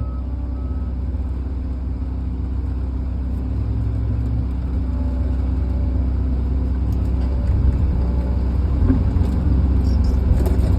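Truck engine idling, heard from inside the cab: a steady low hum that grows slightly louder toward the end.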